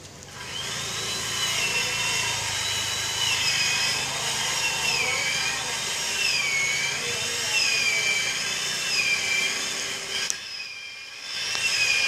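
Chainsaw running and cutting wood, its engine note repeatedly dipping and rising as it bites and frees. It starts a moment in and eases off briefly near the end before picking up again.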